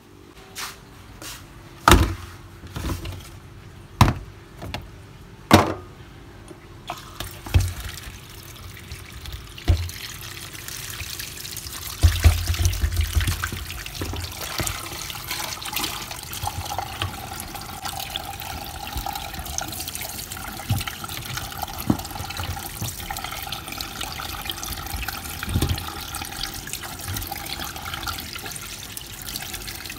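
A few sharp knocks in the first six seconds, then a tap running into a stainless steel sink, the water splashing over a plastic tub and raw fish heads being rinsed by hand.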